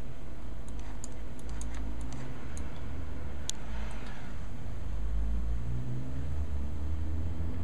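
Low steady rumble and whir of a desktop computer at work while it renders video, with a few light clicks in the first three seconds and a sharper click about three and a half seconds in.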